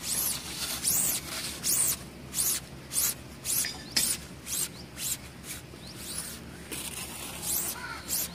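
A thin white plastic sheet wound tightly around a PVC pipe: a swishing rustle with each pull and turn, about two a second, with a brief pause about two-thirds of the way through.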